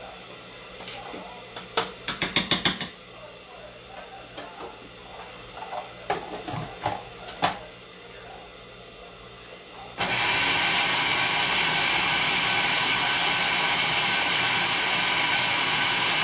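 Food processor blending chickpeas loosened with their cooking water into a purée: the motor switches on suddenly about ten seconds in and runs steadily. Before it starts, a quick run of clicks and a few knocks.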